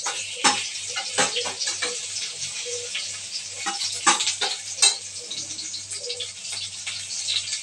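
Stuffed bitter gourds sizzling steadily in a little hot oil in a kadhai, with sharp clicks and scrapes of a steel spoon on a steel plate as the leftover spiced onion stuffing is spooned over them.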